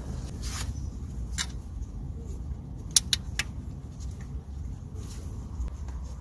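Light metallic clicks and clinks of a bolt and hand tool being handled in an engine bay: a few scattered clicks, with a sharp pair about three seconds in, over a low steady background rumble.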